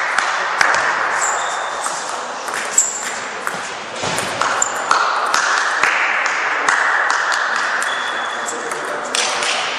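Table tennis balls clicking off bats and the table in quick, irregular knocks during rallies, over a steady hiss.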